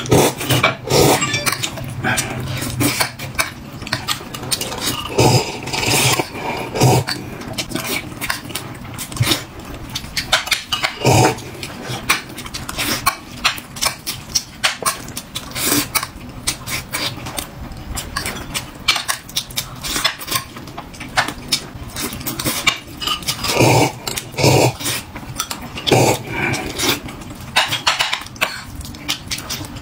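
A person eating close to the microphone: chewing and mouth noises, with many irregular clicks of chopsticks or cutlery against a bowl throughout.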